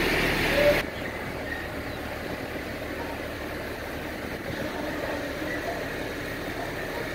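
Crane engine running steadily while it holds a suspended shipping container. Under a second in the sound drops abruptly to a quieter, steady idle.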